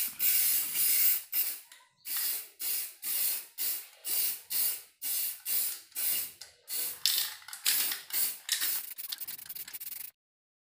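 Aerosol spray-paint can hissing in short repeated bursts, about two a second, spray-painting a motorcycle silencer black. The bursts come shorter and quicker near the end, then cut off suddenly.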